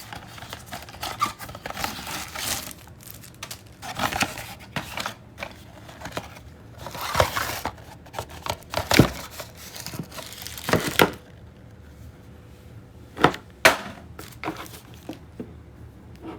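Cardboard box and plastic packaging being opened and handled: irregular rustling and crinkling with tearing, sharp knocks and clicks, quieter after about eleven seconds apart from two sharp knocks.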